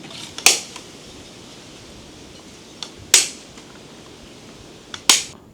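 Three sharp hammer-like knocks about two and a half seconds apart, each preceded by a light tap.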